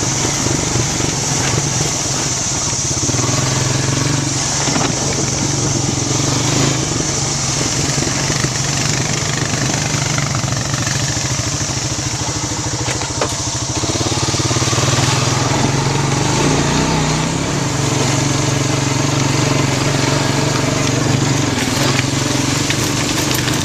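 Honda Rancher 350 ATV's engine running steadily as the quad is ridden, with a slight rise in engine level about two thirds of the way through.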